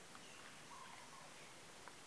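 Near silence: faint room tone with a small click near the end.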